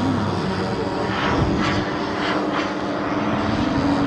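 Motor and propeller of a Flex Innovations Cessna 180 RC floatplane droning steadily as it flies low over the water.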